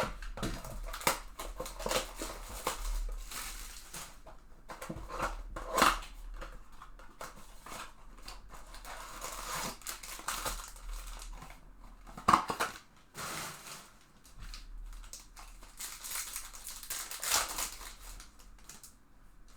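Cardboard blaster box being torn open and trading-card pack wrappers ripped and crinkled: irregular tearing and rustling, with a few sharper, louder rips.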